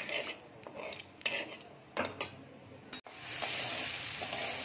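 A metal spatula stirring and scraping in a wok as food fries in hot oil, heard as a string of separate scrapes and knocks. About three seconds in, the sound changes abruptly to a steady, even sizzle of frying.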